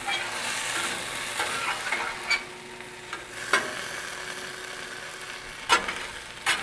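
Red wine and vegetables reducing in a roasting pan over a gas grill burner, sizzling steadily, while a metal spatula stirs and scrapes the pan bottom, with a few sharp scrapes and knocks against the pan, the loudest near the end.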